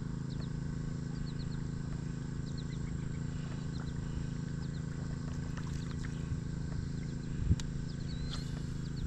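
Steady low hum of a boat motor running, with short high chirps from birds or insects scattered over it and a single low thump about seven and a half seconds in.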